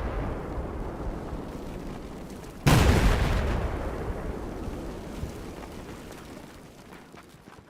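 Explosion sound effect: the tail of one blast dies away, then a second explosion hits suddenly about two and a half seconds in and fades slowly over about five seconds.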